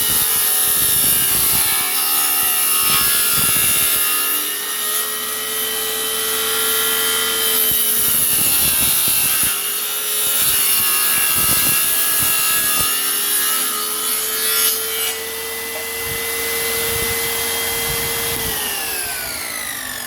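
A 7-inch circular saw with a 24-tooth blade, mounted under a table as a homemade table saw, running and cutting wood. Its motor pitch sags several times as the blade is loaded, and near the end it is switched off and winds down with a falling whine.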